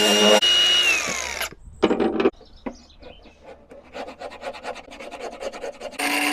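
Tools shaping a small teak wedge. A power tool runs with a steady whine, winds down in pitch and stops about a second and a half in. Then comes a short burst and quicker, quieter rasping strokes on the wood, and the loud whining tool starts again just before the end.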